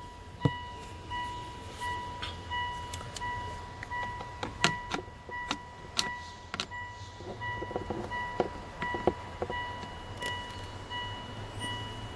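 Mitsubishi Outlander's in-car warning chime beeping over and over at an even pace, a little over two beeps a second. A screwdriver clicks and knocks against the plastic trim under the steering wheel while undoing a screw.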